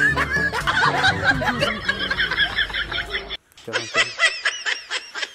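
Background music with a steady bass, broken off by a brief gap about two-thirds of the way in, followed by a snickering laugh sound effect: quick repeated high 'hee-hee' pulses.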